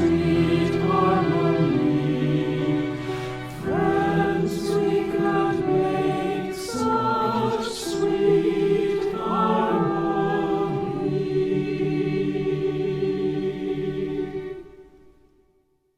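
A mixed choir singing with words, several voice parts together. It ends on a long held chord that fades out about a second before the end.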